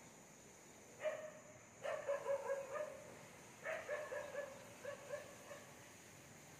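A dog barking, in several quick runs of short barks with a pause between runs.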